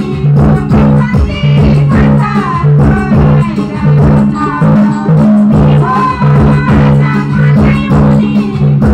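Song played loud through an outdoor stage PA: singing over a band with a heavy, repeating bass line and a steady drum beat.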